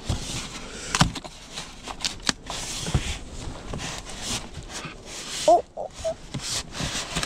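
Rustling, scraping and repeated knocks as a heavy box is handled and opened, with a brief high squeak about five and a half seconds in.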